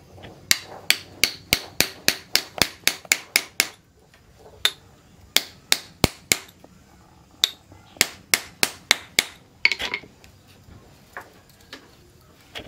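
Hand hammer striking a knife handle held upright on a steel anvil post, seating the handle: a run of about ten sharp knocks at roughly three a second, a short pause, then more runs of knocks.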